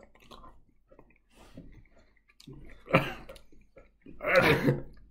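Faint mouth noises of people chewing jerky, then two loud, short non-word vocal outbursts, about three seconds and about four seconds in.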